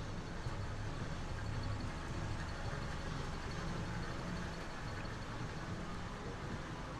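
City street ambience led by a steady low rumble of vehicle traffic, with an even hiss over it.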